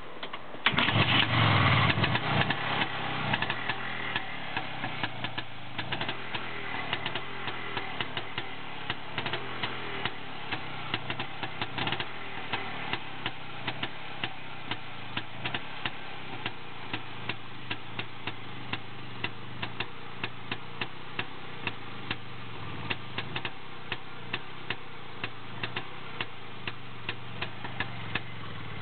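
IZh Planeta-2's single-cylinder two-stroke engine kick-started from cold after standing unused: it catches about a second in, runs loudest for a couple of seconds, then settles into an uneven idle broken by frequent sharp pops.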